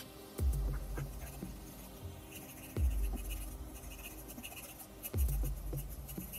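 Background music with a deep beat about every two and a half seconds, over the faint scratching of a pencil shading on paper.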